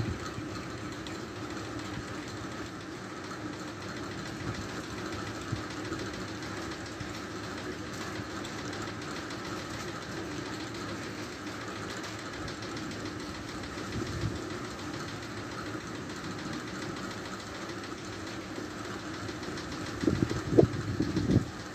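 A steady droning hum, engine-like, holding an even level throughout; a few louder irregular sounds break in near the end.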